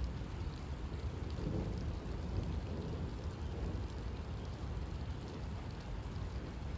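Heavy rain falling steadily with a low, continuous rumble of thunder underneath.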